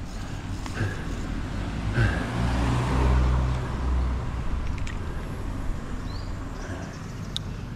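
Road traffic with a motor vehicle passing close by, its rumble rising and falling away between about two and four and a half seconds in.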